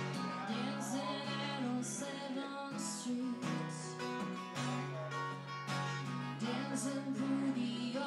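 Steel-string acoustic guitar strummed in a slow, steady chord pattern, played live through a PA.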